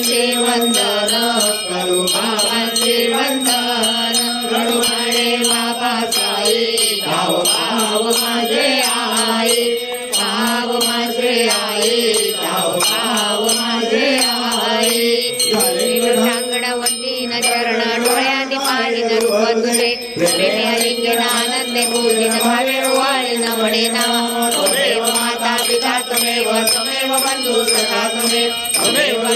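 Bhajan in praise of Sai Baba: a devotional chant-like melody sung continuously, with bells ringing along.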